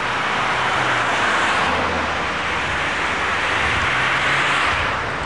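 NS class 1600 electric locomotive standing close by with its equipment running: a steady whirring rush with a low hum underneath, swelling slightly twice.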